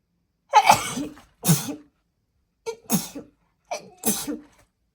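A woman sneezing several times in quick succession, each sneeze a short voiced intake breaking into a loud burst. The fit is set off by incense smoke tickling her nose.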